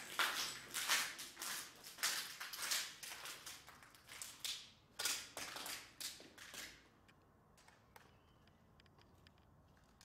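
Footsteps crunching over a debris-strewn floor of fallen plaster and rubble, in an uneven run of steps that stops about seven seconds in, leaving only a few faint ticks.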